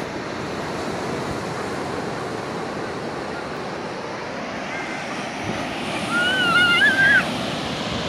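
Sea surf breaking and washing up a sandy beach, a steady rushing wash. About six seconds in, a short high-pitched wavering cry rises over it.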